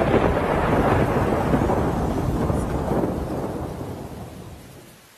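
Severe-storm noise: a loud, continuous rumble of wind with rain, with no distinct claps or separate strikes standing out. It fades away over the last two seconds.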